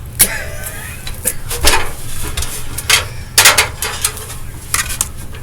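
A smoke detector's plastic housing being handled and taken apart: a string of sharp, irregularly spaced clicks and knocks.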